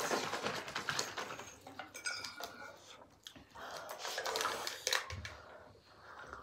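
Eating at a table: cutlery and chopsticks clicking against ceramic bowls and plates, with scattered light clinks and soft noises of eating.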